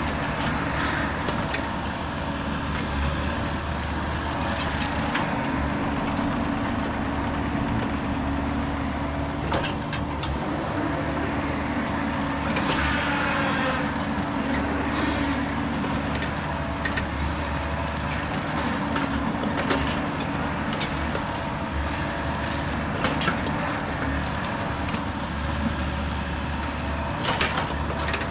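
Mini excavator running steadily with its hydraulic Rut brush cutter head spinning, mulching grass and brush, with occasional sharp cracks of woody stems being shredded.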